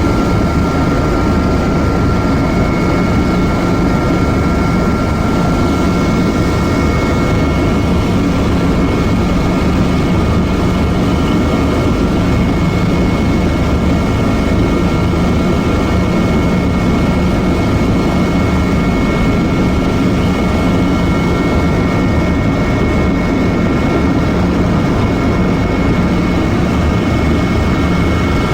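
Helicopter running, heard from inside the cabin: a steady low rotor and engine rumble with two constant high-pitched whines over it.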